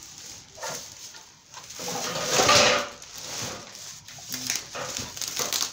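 Paper rustling and crinkling as the grill's assembly instruction sheet is handled, swelling to its loudest in the middle. A few short, soft low tones come in near the end.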